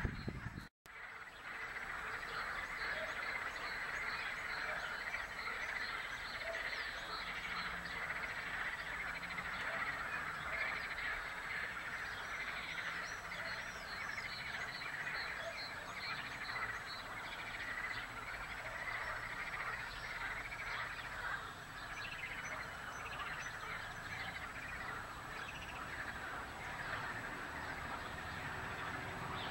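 A dense, steady chorus of many small animals calling at once, countless short overlapping notes, with a few louder calls standing out now and then. The sound drops out briefly just under a second in.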